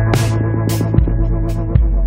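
Electronic background music with a beat: held deep bass notes under a chord, with sharp drum hits.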